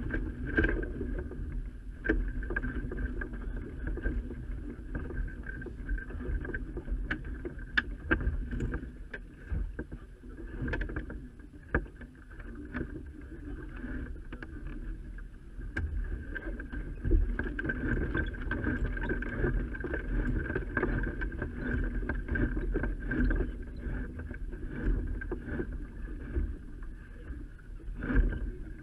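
Wind buffeting the microphone aboard a small sailboat moving slowly through the water, a gusting rumble with scattered short knocks and clicks from the boat's gear.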